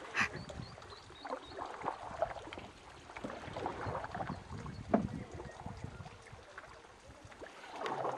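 Canoe paddle strokes dipping and pulling through river water, with water lapping at the hull in irregular splashes.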